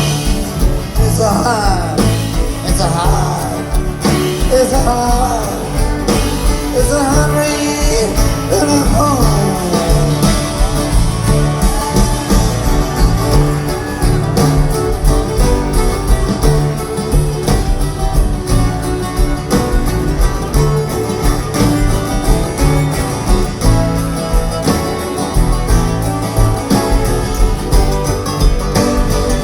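Live band music: guitars, bass and drums playing with a steady beat. A lead melody bends in pitch through the first ten seconds or so.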